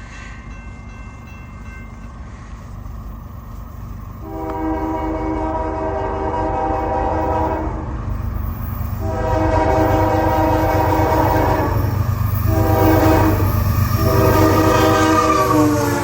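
A CSX ES44AH locomotive's Nathan K5HL five-chime air horn sounding the grade-crossing pattern: long, long, short, long, starting about four seconds in, the last blast dropping in pitch as the locomotive passes. Under it the locomotive's diesel engine runs with a steady low rumble.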